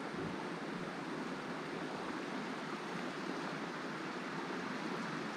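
Steady rushing of stream water, an even hiss with no change throughout.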